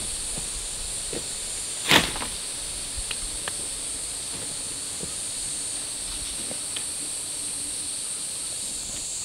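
Steady high-pitched drone of insects calling, with one sharp knock about two seconds in and a few faint ticks.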